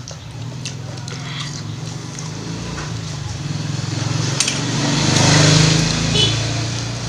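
Spoons and forks clicking on plates while eating, over a steady low hum. A rushing noise swells and fades about five seconds in.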